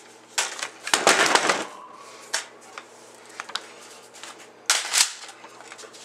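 Handling noise as a Surefire 100-round quad-stack magazine is fitted into an AR-15 pistol's magazine well: a rustle and scrape lasting about a second, a few light clicks, and a sharper, louder clack shortly before the end as the magazine goes into the well.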